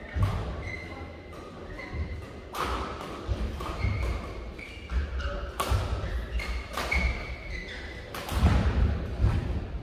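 Badminton rally: three sharp cracks of racket strings hitting the shuttlecock, about three seconds apart, with the players' feet thudding on the court floor and brief shoe squeaks in between.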